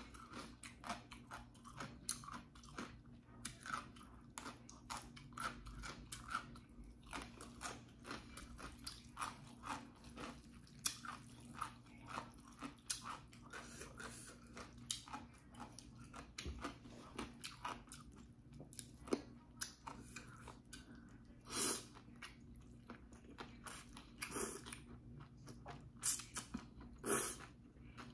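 Close-up chewing and crunching of a crisp white radish slice and cold mixed noodles with leafy greens: a fast, continuous run of short crunches, with a few louder bursts near the end.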